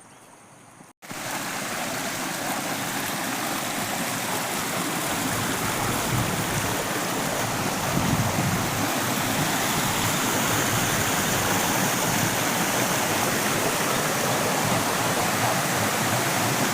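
Waterfall: a steady rush of falling water that begins abruptly about a second in and slowly grows louder.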